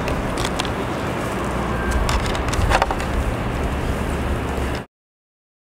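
Steady outdoor background noise with a low rumble and a few light clicks, cutting off abruptly to dead silence near the end.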